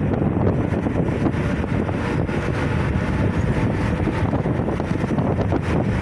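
Wind rushing over the microphone of a moving road vehicle, mixed with the vehicle's steady running and road noise.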